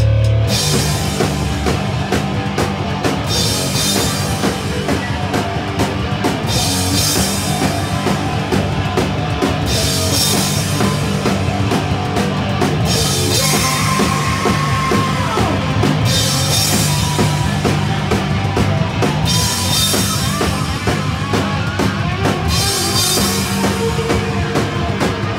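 Live rock band playing loud: electric guitar, bass and a drum kit, with cymbal crashes washing in every few seconds. A held guitar note bends downward about fourteen seconds in.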